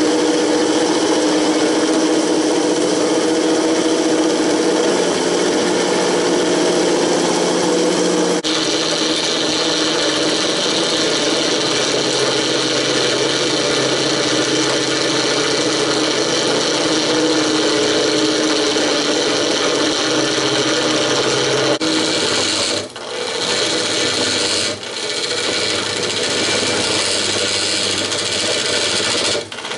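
Woodturning lathe spinning a cast epoxy-resin and cassette-tape blank, with a hand-held turning tool cutting into it: a steady scraping hiss over the lathe motor's hum. The cutting sound changes character a couple of times and dips briefly a few times in the last third.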